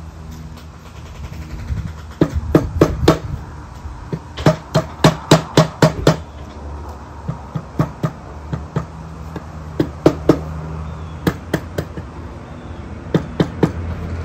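Mallet tapping on a Mercury 650 outboard's crankshaft to seat the rotating assembly in the crankcase block: runs of quick sharp taps, up to about five a second, with pauses between the runs.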